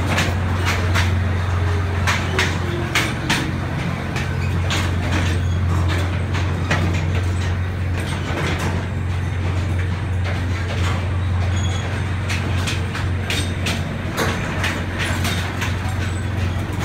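Miniature-railway passenger car running through a corrugated metal tunnel: a steady low rumble with frequent irregular clicks and rattles from the wheels and car.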